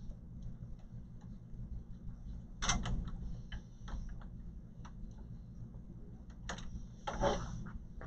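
Irregular clicks, knocks and rustles of hands handling parts and cables inside a desktop computer case, with two louder clatters about three seconds in and near the end, over a steady low hum.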